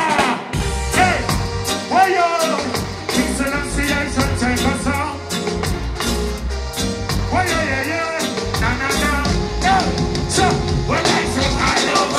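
Live reggae band playing through a large stage sound system, with bass line and drum kit, and a singer's voice over it.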